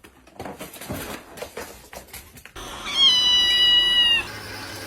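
A cat meowing once, a long, high, steady meow of just over a second, about three seconds in. Before it, faint scattered taps and scuffs.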